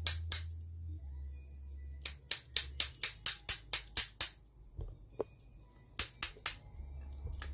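Sharp light taps of a hand tool, not a hammer, on a VW Rabbit A/C blower motor being reassembled, knocking its parts home on the shaft. One tap near the start, then a quick run of about a dozen at roughly five a second, then three more near the end.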